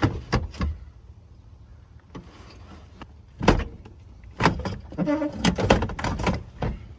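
A front bench seat being worked loose and pulled out of a pickup cab. A few knocks at the start, one loud thump about three and a half seconds in, then a run of metal clatter and knocks with a brief squeak.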